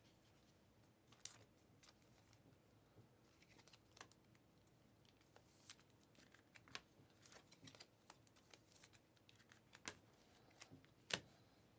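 Faint scattered clicks and soft slides of trading cards being handled and flipped through one by one, with a sharper click near the end.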